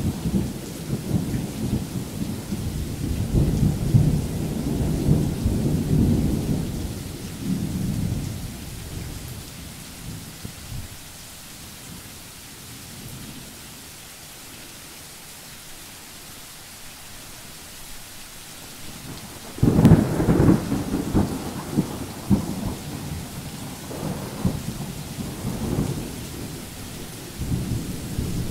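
Thunder rolling in long, deep rumbles, dying away to a lull, then a sharper, louder clap about twenty seconds in that rumbles on for several seconds, over a steady hiss of rain.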